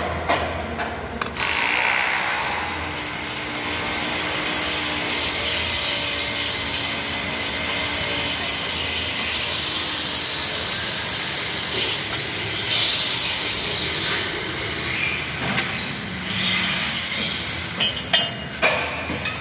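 Steady mechanical noise from work on a bumper-car floor platform, opening with a quick run of clicks and ending in a scatter of knocks and taps.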